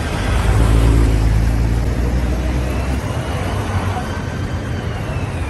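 City street traffic in a jam: the low rumble of a large vehicle's engine close by, loudest in the first half and easing off about three seconds in, over a steady wash of traffic noise.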